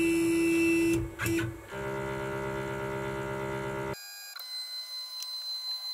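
Stepper motors of a desktop CNC router whining as the machine homes. A steady whine breaks off about a second in, comes back briefly, then changes to a lower, different-pitched whine. That whine cuts off sharply about four seconds in, leaving only fainter, thin high tones.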